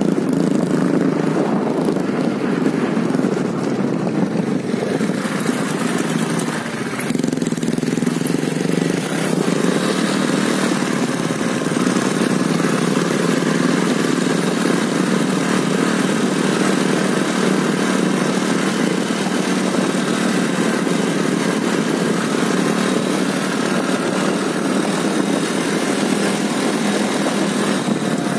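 Motorcycle engine running steadily while riding along a rough dirt road, mixed with wind and road noise on the handlebar-mounted microphone.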